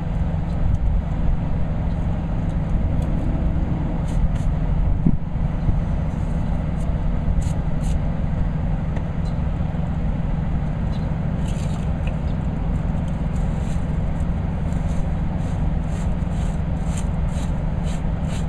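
Steady low rumble of an idling engine, with a run of faint quick clicks in the second half.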